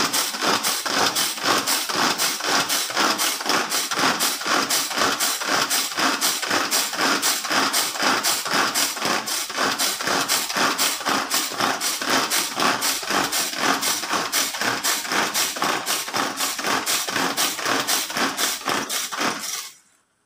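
Hand-powered food chopper worked in quick, even strokes, about three or four a second, its blades whirring through crab stick pieces in the plastic bowl; it stops near the end.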